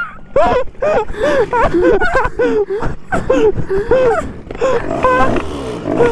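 Two-stroke Derbi moped engine with an 80 cc Italkit cylinder kit revving up and down in quick blips, about two or three a second.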